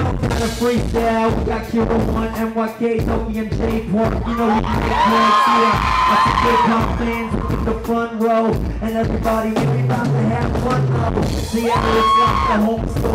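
Live hip hop music with a drum kit and a DJ's beat keeping a steady rhythm, and a voice singing over it through the PA. The voice holds long notes about five seconds in and again near the end.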